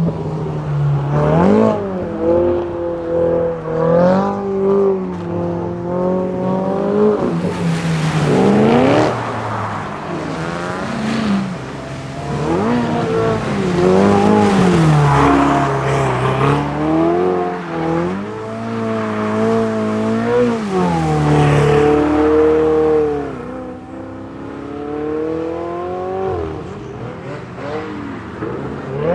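Ferrari 488 GTB's twin-turbo V8 through an Akrapovič exhaust, revving up and falling back again and again as the car is drifted with wheelspin on a wet surface. The pitch swings up and down every second or two, with a few longer, louder pulls.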